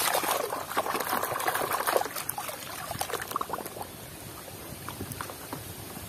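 A hand swishing a toy around in a plastic bucket of muddy water: sloshing, splashing and bubbling, livelier for the first two seconds, then quieter.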